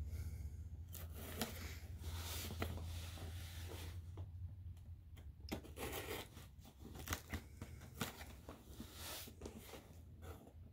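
Folding knife slicing through packing tape on a cardboard box: irregular scraping and rasping as the blade cuts, with small clicks and knocks as the box is handled. A low hum sits underneath and fades about four seconds in.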